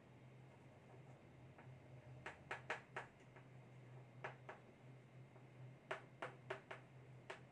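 Chalk tapping and scraping on a blackboard as words are written: faint short clicks in loose clusters, over a low steady hum.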